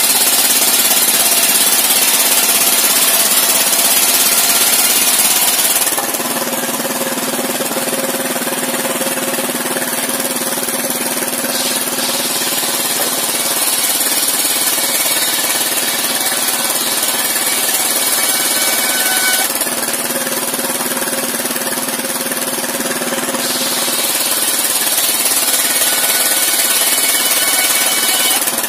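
Engine-driven circular sawmill blade ripping through timber, a loud high hiss over the steady engine drone. The cut ends about six seconds in, leaving the engine and free-spinning blade running, and the blade cuts again for a few seconds past the middle.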